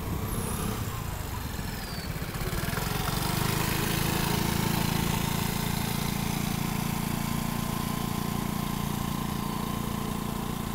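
Vespa Primavera scooter's single-cylinder engine running at low, steady throttle as it rides past at a crawl. The engine sound swells about three seconds in as it passes close and eases off near the end.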